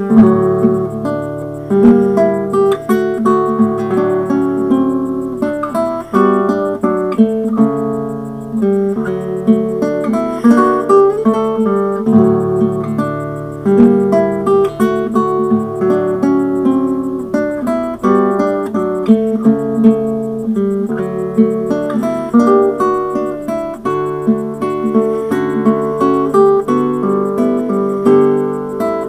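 Solo classical guitar, an Edward Jones instrument built in 2004, played fingerstyle: a slow, singing melody line plucked over sustained bass notes.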